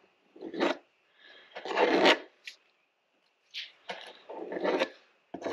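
Several scraping and rubbing strokes of uneven length from an applicator working two-part plastic repair compound into the gouges of a plastic dirt bike gas tank.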